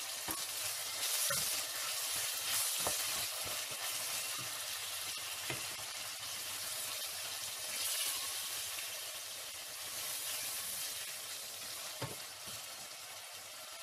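Chopped onions and tomatoes sizzling steadily as they fry in oil in a stainless steel pot, stirred with a wooden spoon and a metal spoon. A few light clicks come from the spoons against the pot.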